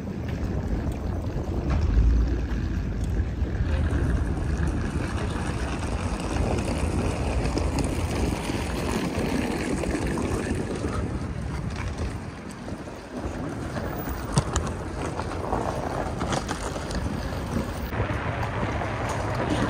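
City street traffic, with cars and a lorry passing, under a low rumble of wind buffeting the microphone. There is one brief sharp click about three quarters of the way through.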